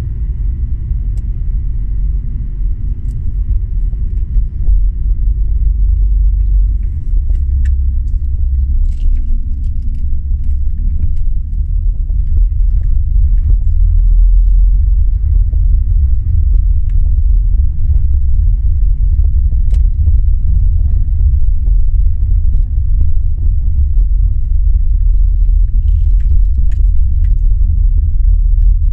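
A car driving, heard from inside the cabin: a steady deep rumble of tyre and road noise. After the first several seconds the car is on a gravel road, the rumble grows louder, and stones tick and crackle under the tyres.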